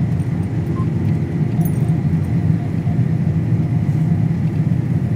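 Combine harvester running steadily while cutting in the field: a constant low rumble with no let-up.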